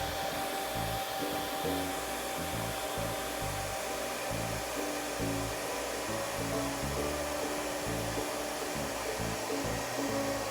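Handheld hair dryer blowing steadily with a constant whine, over background music.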